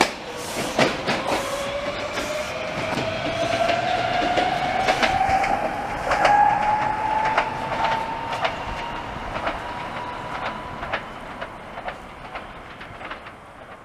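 Norristown High Speed Line N-5 electric rail car pulling away, its traction motors giving a whine that rises steadily in pitch as it gathers speed. Wheels click over rail joints, and the sound fades as the car recedes.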